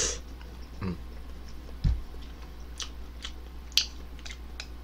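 A person chewing a mouthful of instant ramen noodles, after a slurp that ends right at the start, with soft mouth clicks throughout. A dull knock comes about two seconds in and a sharp click near four seconds, as chopsticks work noodles onto a wooden ladle.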